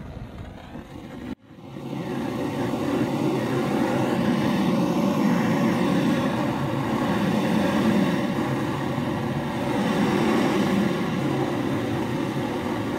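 Hand-held gas soldering torch burning with a steady, low rushing flame that starts about a second and a half in, heating a copper pipe fitting before solder is fed into the joint.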